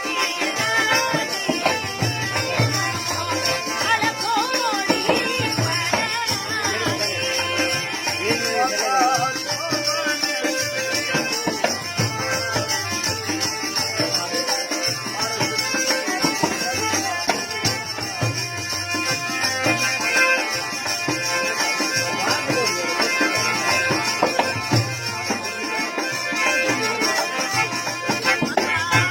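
Marwari folk music: a melody over a regular low drum beat, running steadily.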